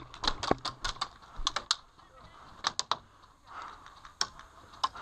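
Airsoft gunfire: scattered sharp clicks and pops, single and in quick pairs, several in the first two seconds, then sparser, with a quiet gap in the middle.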